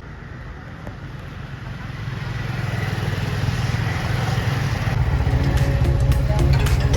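A road vehicle running on the move with road and wind noise, growing steadily louder; background music comes in near the end.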